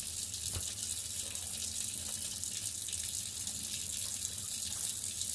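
Steady hiss of running water, with a light knock about half a second in.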